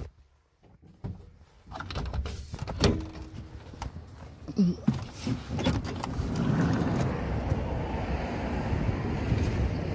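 Several knocks and clattering handling sounds, then from about six seconds in a steady rush of ocean surf with wind on the microphone.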